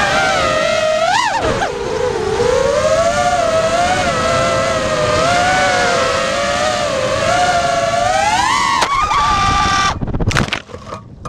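QAV-R 5-inch FPV racing quadcopter's brushless motors and props (Lumenier 2206 2300KV, 5-inch bullnose props) whining, heard from its onboard camera, the pitch rising and falling with throttle and a sharp jump about a second in. Near the end the whine cuts off abruptly and several knocks follow as the quad crashes and tumbles into the grass.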